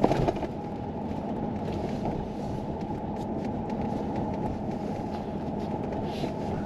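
Steady road rumble and rattle heard from inside the cabin of a car being towed on a dolly, with a short knock right at the start and a few faint ticks.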